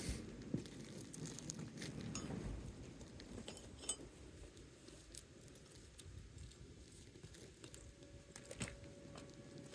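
Scattered light clicks and taps from hand tools and shingles being handled during a roof shingle repair, over a low steady rumble.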